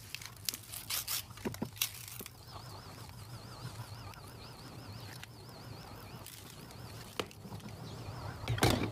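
Brown kraft-paper mailer being cut and torn open by hand: the paper crackles and rips in short bursts. The loudest rustling and tearing comes near the end as the torn flap is pulled back.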